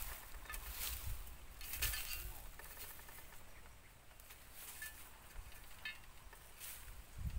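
A hoe blade scraping and poking through dry leaves and twigs, faint dry crackling and rustling with a few sharper scrapes in the first two seconds, then only small ticks.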